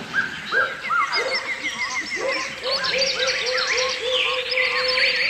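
Several birds singing at once: overlapping whistled notes, quick runs of repeated chirps, and a string of short whistles that repeat about three times a second through the second half.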